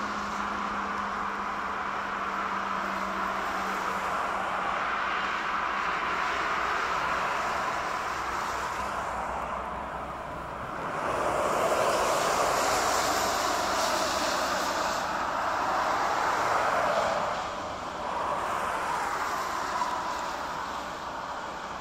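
Jet engines of an Airbus A350-900 on final approach and landing, a steady noisy rush that swells about halfway through as the aircraft comes close and eases near the end.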